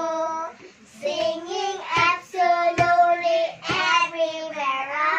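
A young child singing a tune in held notes, with three sharp hand strikes on a small skin-headed wooden drum about two, three and nearly four seconds in.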